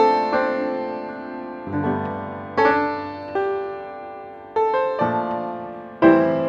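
Background piano music: chords struck every second or so, each ringing on and fading before the next.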